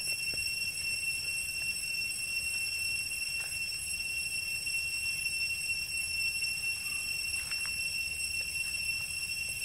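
Steady high-pitched insect drone, several unchanging tones held throughout, over a low rumble, with a few faint rustles.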